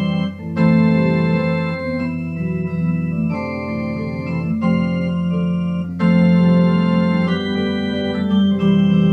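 Slow worship song played instrumentally on a sustained, organ-like keyboard, with no voice. Held chords change about every second or so.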